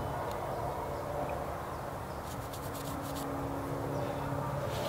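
Outdoor ambience with a steady low drone and a few faint ticks.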